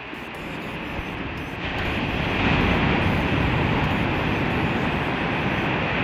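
Ocean surf breaking close by, a wave's whitewater rushing up the beach; the roar swells about two seconds in and stays loud.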